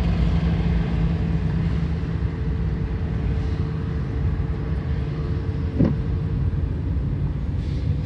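Vehicle engines running in a slow traffic queue: a steady low rumble with a sustained engine hum, and a short knock about six seconds in.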